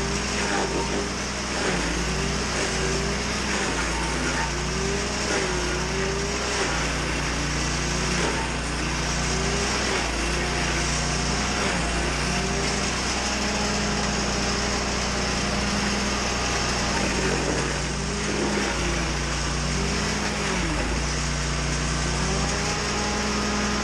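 A small engine running continuously, its pitch wavering up and down as the load changes.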